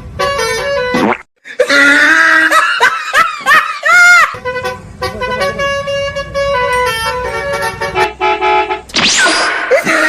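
Multi-tone Basuri 'telolet' bus horn playing a melody of short stepped notes, stopping about a second in and resuming about halfway through. In between come bursts of laughter and gliding squeals.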